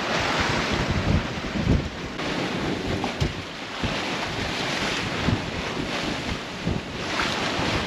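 Water rushing and hissing along the hull of a sailboat moving under sail, swelling and easing every few seconds, with wind buffeting the microphone.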